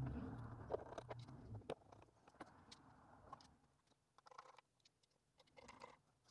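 Faint handling noise from reassembling a small ham transceiver: hands rubbing and shifting the case for about the first three seconds, then scattered light clicks as a precision screwdriver turns screws into the radio's case.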